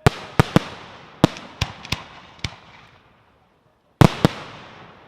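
Fireworks shells bursting: a quick series of sharp bangs, about seven in the first two and a half seconds, each trailing off in an echoing rumble. After a short lull come two loud bangs close together, about four seconds in.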